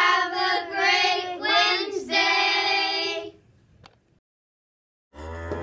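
A group of children singing or chanting a short phrase together in unison, with long held notes, stopping about three and a half seconds in. Just before the end, a cow's low moo begins.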